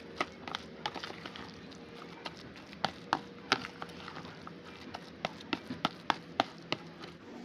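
Kitchen utensils tapping and knocking in irregular sharp clicks, about fifteen over several seconds, over a faint steady background hum.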